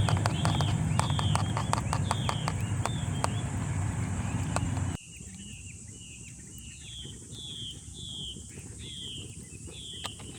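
A bird calling over and over with short downward-sliding chirps, about two a second, over a steady high insect-like hiss. For the first half a louder low rumble with rapid clicks runs under it and cuts off suddenly about halfway.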